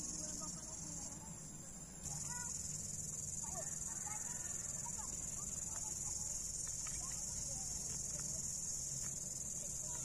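Steady high-pitched drone of insects, dipping briefly about a second in and back at full strength about two seconds in, with faint scattered short calls beneath it.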